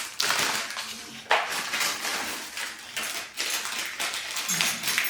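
Parts and packaging being handled as a stepper is unpacked from its box: rustling with light knocks and clinks, several sudden starts.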